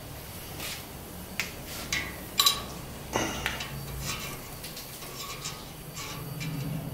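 Irregular light metallic clinks and taps as small steel parts are lowered into a steel pot of molten bluing salt, knocking against the pot. Under them runs the low, steady hum of the propane burner heating the pot.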